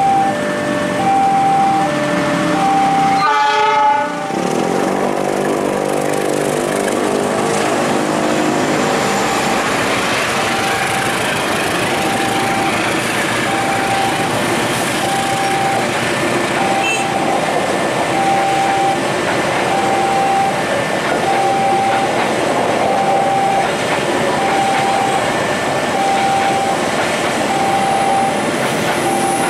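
Passenger train passing a level crossing. Its horn sounds about three and a half seconds in and falls in pitch over the next few seconds as it goes by, then comes the steady running noise of the carriages on the rails. The crossing's warning signal repeats a single tone about once a second throughout.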